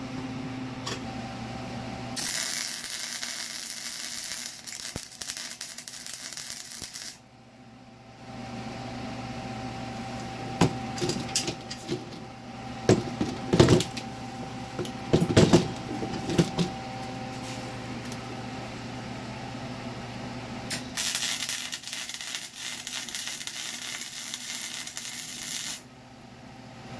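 Wire-feed welder crackling in two runs of about five seconds each, welding a steel V-band flange onto an exhaust pipe, with a cluster of sharp metal clinks and knocks between the runs.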